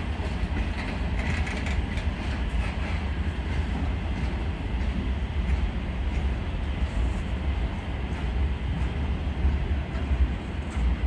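Freight train of container flat wagons rolling past: a steady rumble of wheels on rails.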